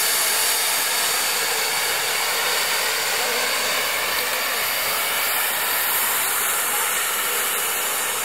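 Steady hiss of steam escaping from steam locomotive No. 850, standing fired up.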